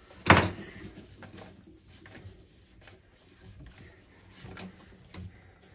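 Basin waste fittings being handled and tightened by hand: one sharp knock about a third of a second in, then scattered light clicks and rubbing.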